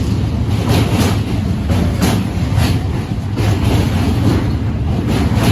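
Passenger train running, heard from inside the carriage: a steady low rumble with the wheels clacking over the rail joints about twice a second.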